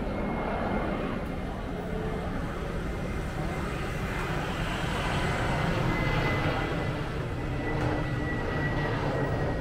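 Airliner on its landing approach: a steady engine rumble with a thin high whine that drifts slightly lower in pitch.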